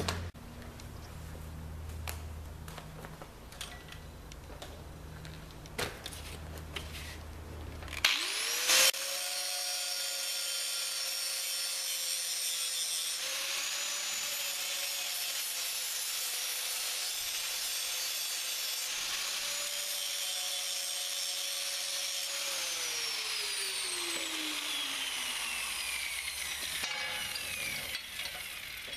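Angle grinder spinning up about 8 seconds in after a few low knocks, then grinding a V-groove into the end of a steel harvester chain bar to prepare it for welding. It is switched off and winds down with a steadily falling whine near the end.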